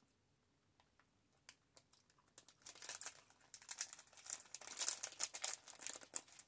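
Snack wrapper crinkling and tearing as it is opened by hand. It starts about two and a half seconds in and goes on in rapid crackles until just before the end.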